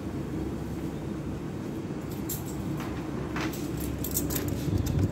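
Shop room tone: a steady low hum with a few brief rustles and clicks in the second half.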